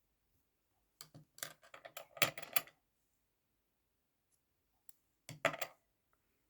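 Small clicks and rustles of hand sewing work on a garment, in two brief bursts: the first about a second in, lasting under two seconds, and a shorter one near the end.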